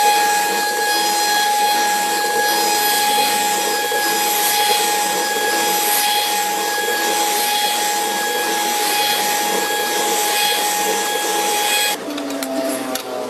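CNC router spindle running with a steady high-pitched whine over a rushing noise; the whine cuts off abruptly near the end.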